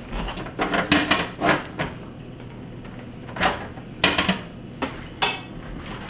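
Plastic ice bucket being slid into a refrigerator freezer and seated onto its auger and ice pin. It makes a quick run of plastic knocks and clatter over the first couple of seconds, then three separate sharper clicks.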